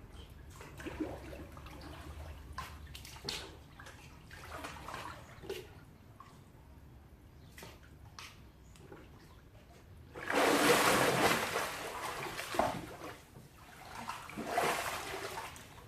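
Water splashing and sloshing in a swimming pool: small splashes and lapping, then a loud burst of splashing about ten seconds in and another shorter one near the end.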